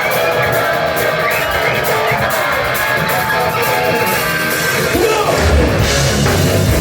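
Rock band playing loudly live, with a sung vocal line over the band; the low end grows heavier about five seconds in.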